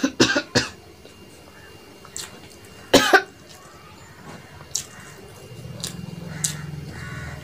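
A person eating rice with a spicy mashed green-banana-peel paste, coughing in short sharp bursts near the start and once loudly about three seconds in, a reaction to the chilli heat the eater calls quite spicy. Quieter mouth sounds follow, with a low hum near the end.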